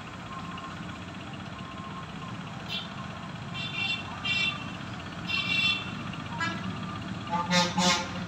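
Tata BS6 truck's engine idling steadily, with several short, higher-pitched sounds over it, the loudest near the end.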